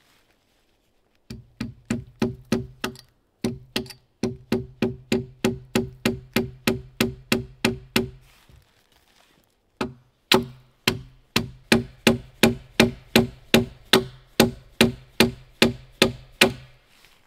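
Rapid, even blows of a hand tool striking wood, about four a second, each with a short ringing tone, in runs broken by a two-second pause midway.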